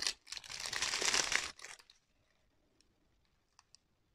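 Strips of small plastic bags of diamond-painting drills crinkling as they are handled, for about the first second and a half, then quiet apart from a few faint ticks.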